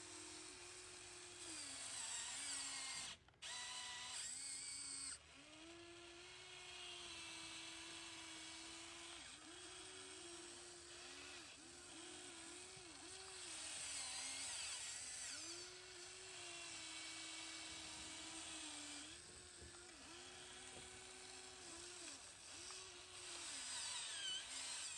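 Electric motors and gear drives of a Huina 1593 radio-controlled excavator whirring in short, stop-start spurts as the boom, arm and turntable move. A low hum cuts in and out repeatedly, with higher whines that rise and fall in pitch.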